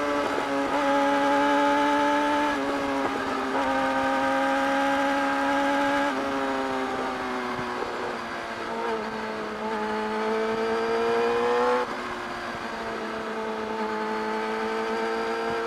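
Yamaha R6 sport bike's inline-four engine running at high revs under way. Its pitch steps down and climbs again several times as the revs change, and the level drops suddenly near the end.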